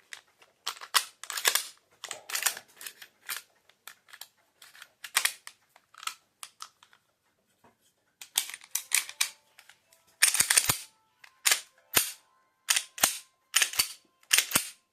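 Irregular clicks and clacks of a 3D-printed Taurus pistol being handled, its printed and metal parts knocking and snapping against each other. The clicks thin out midway, then come back as sharper, heavier knocks in the last few seconds.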